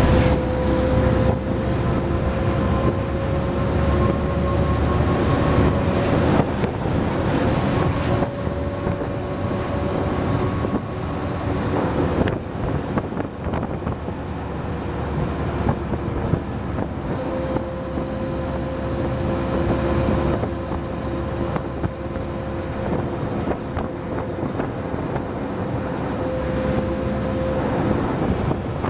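Mercedes-Benz O-500UA articulated bus's diesel engine heard from inside the rear section while driving: a steady rumble with a whine that slowly rises in pitch, cuts out and comes back several times.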